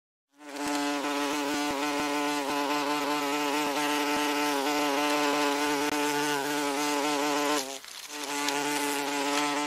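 Wasp wings buzzing steadily with a slightly wavering pitch, breaking off briefly near the end and starting again.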